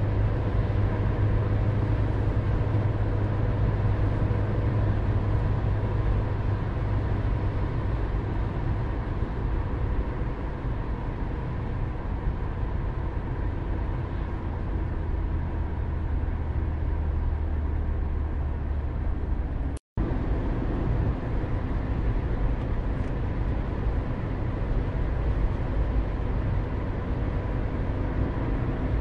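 Steady road and engine noise of a car driving at speed, heard from inside the cabin as a low rumble with a faint steady hum. The sound cuts out completely for a moment about two-thirds of the way through.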